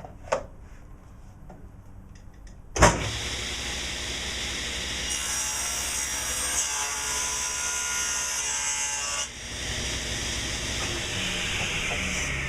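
Delta table saw switched on about three seconds in and running, with the blade cutting a board for about four seconds in the middle. Near the end the saw is switched off and the motor starts to wind down, its pitch falling.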